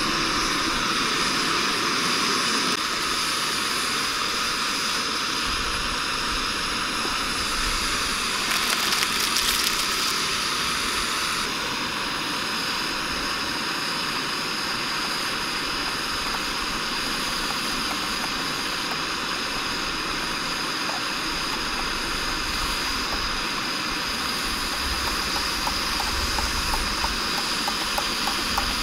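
Cheap screw-on gas canister stove burning under a pot, a steady, noisy hissing roar of the flame.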